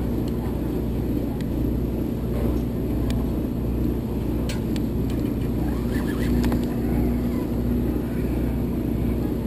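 Steady low drone of a party boat's engine with a constant hum, and a few faint sharp clicks over it.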